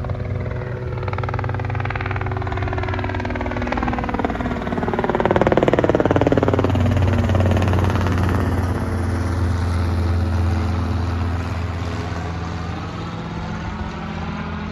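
A motor vehicle's engine running steadily as it passes close by, loudest about halfway through.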